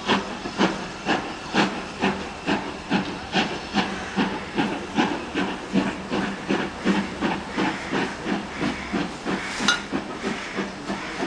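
Steam locomotive's exhaust chuffing as it pulls a train away, the beats regular and quickening from about two to nearly three a second. A brief shrill sound stands out near the end.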